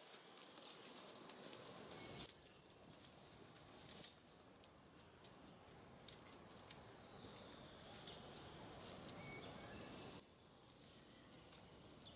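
Faint forest ambience: soft rustling and a few short, high bird chirps.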